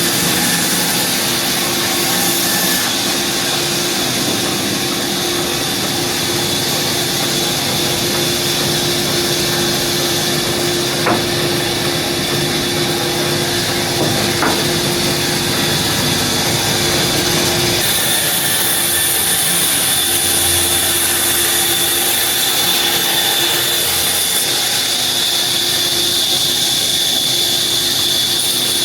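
Sawmill saw running and cutting wood: a steady, loud machine noise with a constant hum and a high whine, and two brief knocks near the middle. About two-thirds of the way through, the hum drops away and the higher noise changes.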